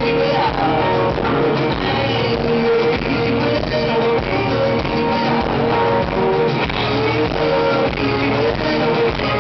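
Live rock band playing, led by a strummed amplified acoustic guitar with drums, loud and steady.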